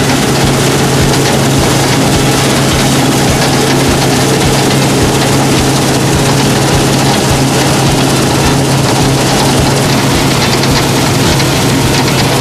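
Combine harvester at work, its reel and cutter bar taking in standing grain: a loud, steady drone of engine and machinery with a constant low hum.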